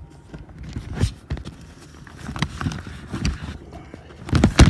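A large cardboard shipping box being handled: scattered knocks, taps and rustles of cardboard and paper wrapping, with a louder cluster of bumps near the end.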